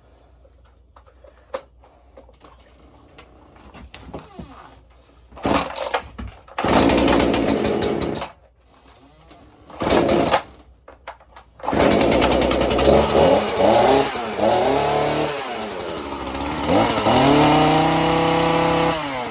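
Husqvarna 235 two-stroke chainsaw being cold-started: short bursts where it fires and dies, then it catches about twelve seconds in and keeps running. It is revved up and down a few times before settling back toward idle. At idle the chain keeps turning, which the owner means to tackle with carburettor work.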